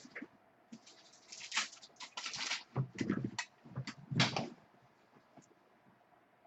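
Trading cards and their packaging being handled: a run of irregular rustling, sliding and light knocking for the first four and a half seconds, then quieter.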